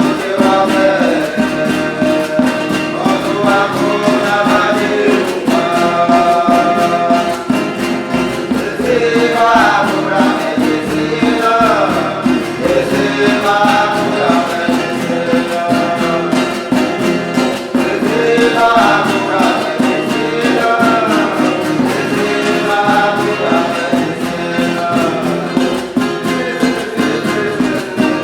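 Huni Kuin chant: voices singing a melody over a steady, rhythmic instrumental accompaniment.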